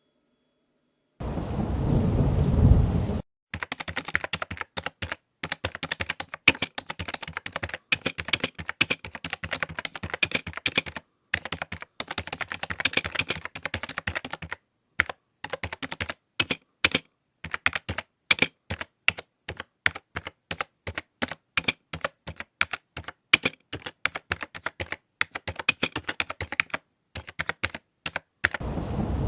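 Typing on a computer keyboard: dense, irregular key clicks in runs separated by short pauses. A low rumbling burst comes about a second in and another near the end.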